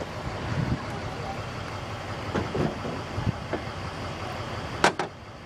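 Steady vehicle noise, with one sharp click near the end.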